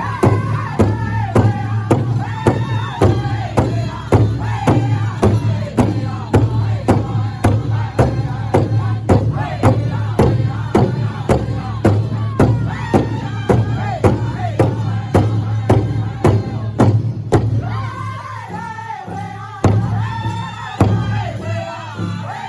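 Loud music with a heavy, steady beat of about two beats a second, with crowd voices over it. The beat drops out for a couple of seconds near the end, then comes back.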